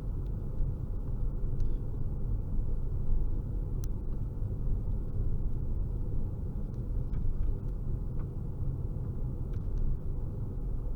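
Steady low rumble of a moving car heard from inside the cabin: road and engine noise, with a few faint clicks.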